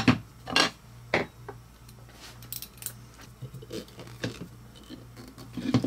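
Short M3 machine screws being driven into a 3D-printed plastic laser mount: scattered small clicks and taps of the screws and tool on the plastic, over a low hum.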